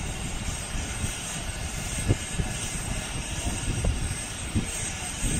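Truck-mounted knuckle-boom crane's engine running steadily to drive the hydraulics, with a few low thumps, the strongest about two seconds in.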